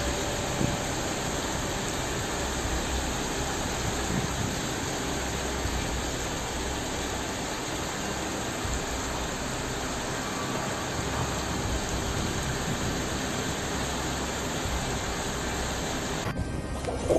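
Steady rushing noise of rain and floodwater, with no clear engine or voices, cutting off abruptly near the end.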